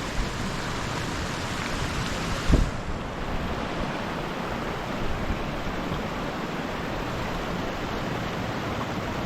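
Spring water running in a steady rush, with a single low thump about two and a half seconds in.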